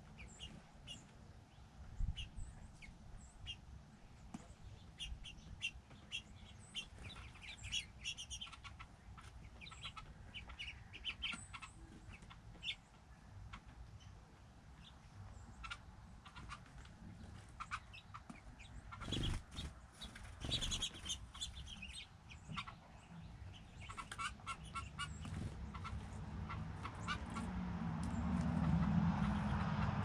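Small songbirds at a seed feeder giving many short, high chirps, with a few sharp taps in between. A low rumble builds near the end.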